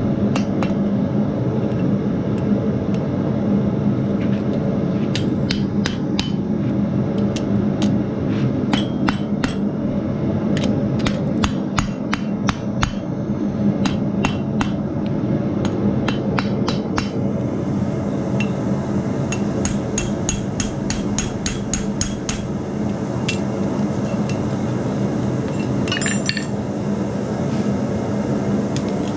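Hammer blows on a steel strap hinge at the anvil, irregular strikes coming in clusters, hammering the hinge's centre section down to fit. A steady low hum runs underneath.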